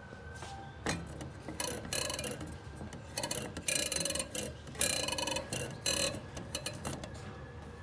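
Fingers rubbing and pushing on the painted metal moon-phase dial of a grandfather clock. It makes an uneven run of scrapes and clicks that is loudest in the middle.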